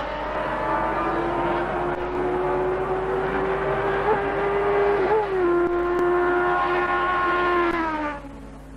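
Racing sidecar outfit's motorcycle engine running hard at a steady high pitch, with a brief dip and pick-up about five seconds in. The pitch falls a little near the end and the sound drops away.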